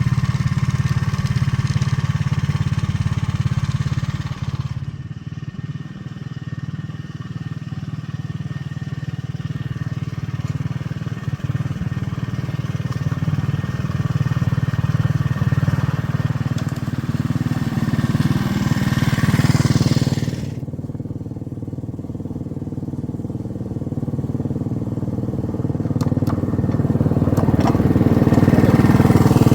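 Small engine of a ride-on miniature railroad train running steadily as it travels along the track. The sound shifts twice, about five and about twenty seconds in, when the higher rattle drops away and the engine note carries on alone.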